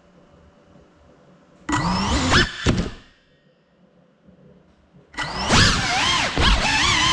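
Cinewhoop FPV drone's brushless motors and propellers whining, the pitch sweeping up and down with the throttle. A short loud burst comes about two seconds in and drops away to near quiet. Then steady revving starts about five seconds in.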